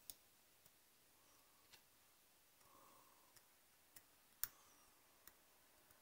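Near silence broken by a handful of faint, sharp clicks and taps from small hand tools being handled at a workbench, the loudest one about four and a half seconds in.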